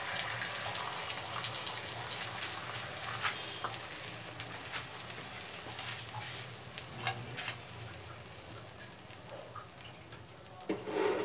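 Beaten egg frying in hot oil on a flat tawa griddle, a crackling sizzle that starts as the egg is poured on and slowly fades.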